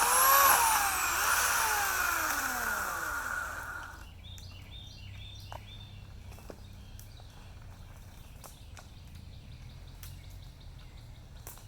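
Homelite 16-inch electric chainsaw's motor whining at full speed, then released and spinning down with a falling pitch over about three seconds. After that comes a low background with scattered faint clicks.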